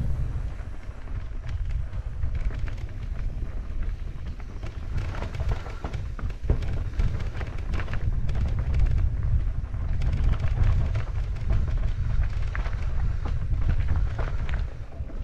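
Wind buffeting the microphone in a steady low rumble while a mountain bike descends a rough trail, its tyres and frame giving off scattered clicks and rattles that thicken in two rough stretches.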